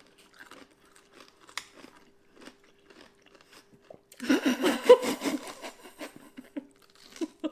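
Sliced pickled ginger being bitten and chewed, with small sparse crunches at first and a loud, dense run of crunching about four seconds in as a big mouthful goes in.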